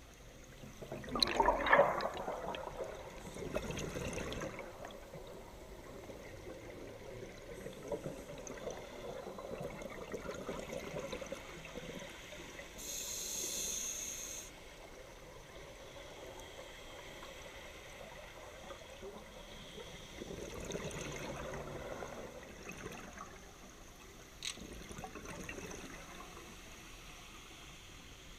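Scuba regulator breathing underwater: bubbly exhalations, loudest a second or two in and again about two-thirds of the way through, and a short hissing inhale near the middle.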